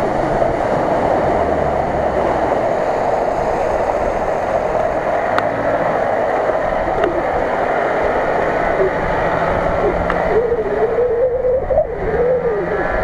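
Nissan Patrol SUV's engine running under load as it drives through deep mud and water, with spray splashing off the tyres.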